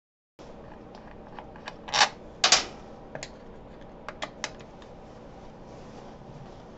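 Sharp metallic clicks and clinks of loose steel bolts and an Allen key being handled as the bolts come out of a Harley primary cover, the two loudest about two seconds in, then a few lighter ticks. The sound cuts in abruptly after half a second of dead silence.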